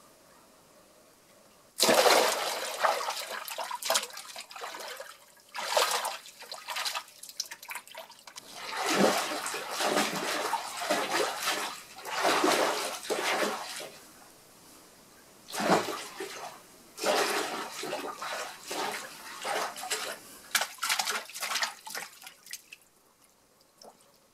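Foley water splashing: hands or props churned through a tub of water in irregular surges, imitating wildebeest crossing a river, starting about two seconds in and stopping shortly before the end.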